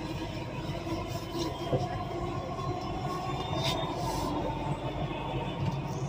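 Elevated metro train running along its viaduct, heard from inside the carriage: a steady rumble of wheels on rails, with a couple of brief high sounds about halfway through.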